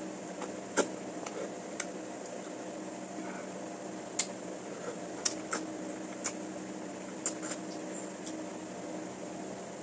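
Eating sounds: scattered sharp clicks and smacks at irregular intervals, from chewing and utensils, over a steady mechanical hum.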